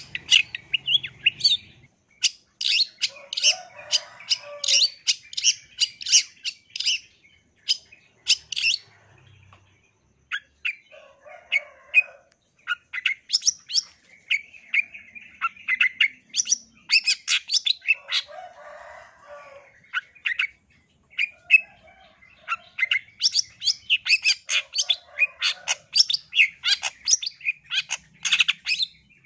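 Long-tailed shrike (cendet) singing: fast runs of sharp, high chattering notes in bursts of a few seconds with short pauses, some lower, rougher notes mixed in.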